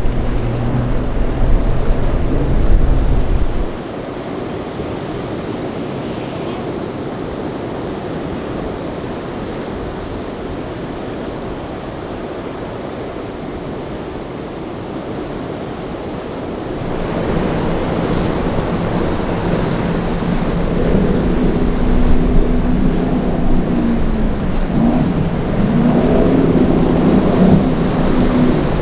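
A Mercury outboard on a small center-console boat runs at speed through the chop for the first few seconds. Then a steady wash of surf and wind, until past the halfway mark the engines of a large offshore powerboat come in, their pitch rising and falling as it pounds through the waves amid crashing spray.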